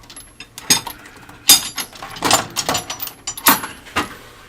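Steel socket extensions and a speed wrench clinking against each other and the metal drawer as they are picked up and set down, about seven separate clinks, each with a brief metallic ring.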